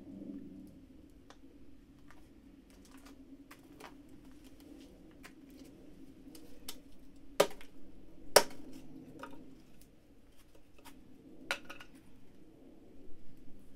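Sticks of firewood handled, knocked together and laid on a smoking campfire: scattered small clicks and crackles, with two sharp wooden knocks about a second apart midway and another a few seconds later.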